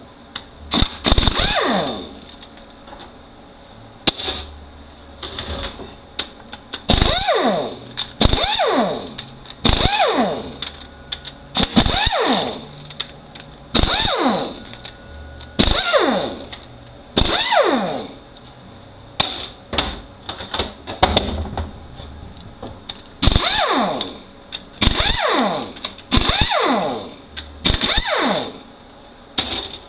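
Pneumatic air ratchet running in a string of short bursts, one every second or two, spinning bolts out of a Toyota U660E automatic transaxle case; each burst winds down with a falling whine as the trigger is let go.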